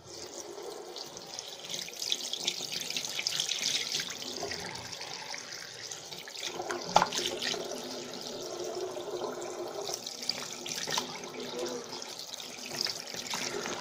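Tap water running steadily into a sink while hands are washed under it, with a light knock about seven seconds in.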